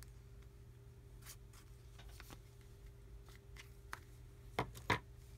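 Light clicks and taps of a Samsung Galaxy S4's plastic and metal parts being handled on a workbench during disassembly, with two sharper clicks close together near the end.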